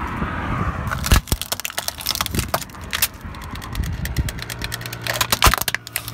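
Car tyre rolling over plastic toys on asphalt and crushing them: a dense run of sharp cracks and snaps of breaking plastic starting about a second in, over the low hum of the car.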